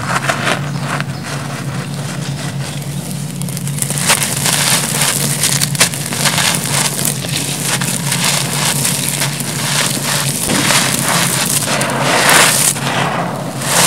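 Hands digging into and crumbling dry grey crushed concrete, gravel and dust: a steady gritty crunching full of small clicks of grit. The pouring crumbs give a louder hiss about twelve seconds in.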